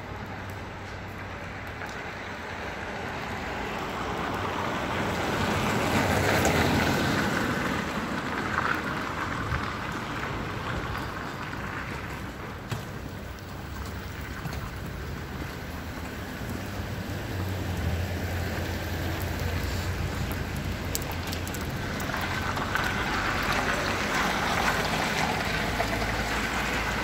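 Steady patter and splash of thaw meltwater dripping onto a wet pavement, with the hiss of car tyres on wet asphalt swelling about six seconds in and again near the end.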